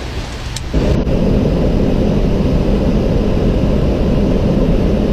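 Airliner cockpit noise: a steady low rumble of engines and airflow, which jumps clearly louder a little under a second in.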